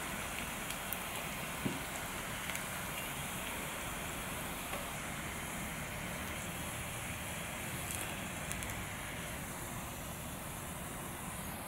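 Hot oil sizzling steadily as breaded pieces deep-fry in a small saucepan, with a few scattered small crackles and pops.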